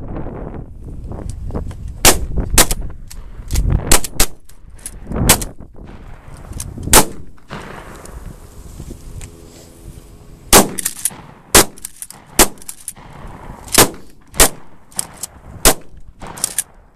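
Several shotguns firing at targets, about fifteen loud shots at irregular spacing, sometimes two close together, with a pause of about three seconds in the middle.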